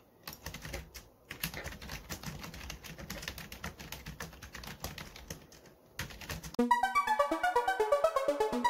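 Fast typing on a computer keyboard, a quick run of keystroke clicks lasting about six seconds. Then louder music with a quick repeating pattern of notes comes in near the end.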